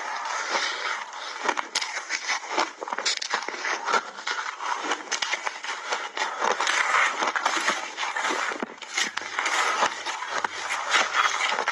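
Ice being crunched and chewed close to a clip-on microphone: dense crackling with many sharp cracks. A metal spoon scrapes and digs through crushed refrozen mixed berries in a bowl.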